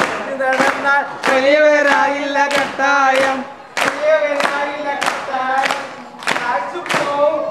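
A group of people singing a song together and clapping along in time, about three claps a second.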